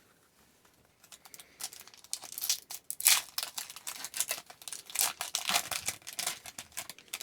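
A hockey card pack's wrapper being torn open and crinkled, a dense run of sharp crackling starting about a second in and going on to the end.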